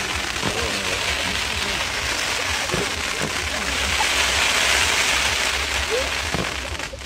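Fireworks spraying sparks: a steady, dense hissing and crackling like heavy rain.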